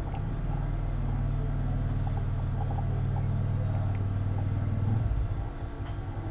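A steady low rumble that eases off about five seconds in.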